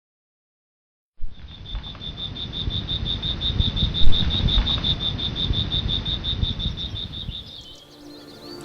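An insect, likely a cricket, trilling in a fast, even, high-pitched pulse over a steady low rushing noise, with one sharp knock about four seconds in. Faint bird chirps come in near the end.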